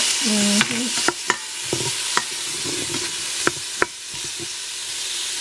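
Onions sizzling steadily as they sauté in butter in a pot, stirred with a utensil that knocks sharply against the pot about six times.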